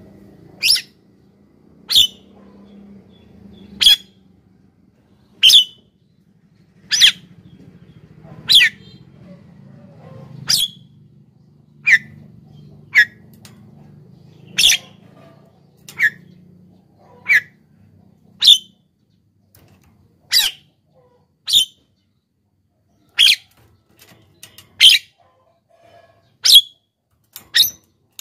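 Javan myna calling: a short, sharp, loud call repeated about every one and a half seconds, some calls lower in pitch than others.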